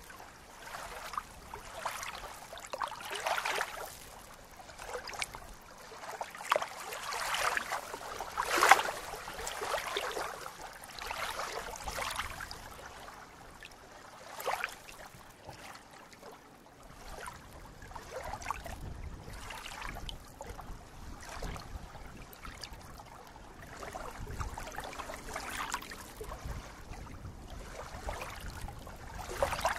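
Small waves lapping and splashing at a reedy lake shore, in irregular soft splashes that come and go. From about halfway through, a low rumble joins underneath.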